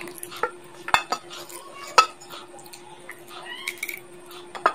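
Teeth biting into and cracking a chicken bone: a handful of sharp cracks and crunches with chewing in between, the loudest crack about two seconds in.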